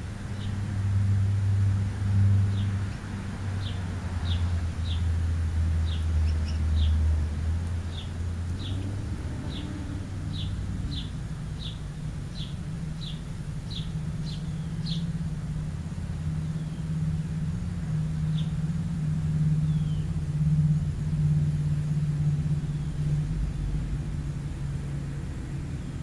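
A bird chirps in short, sharp notes, about two a second, for the first fifteen seconds or so; these are house sparrow chirps. Under them a vehicle engine's low drone runs throughout and is the loudest sound, shifting to a higher pitch about halfway through.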